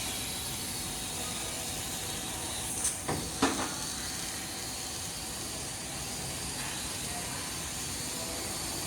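6000 W fiber laser cutting machine cutting thick steel plate: a steady hiss, with a few short cracks about three seconds in.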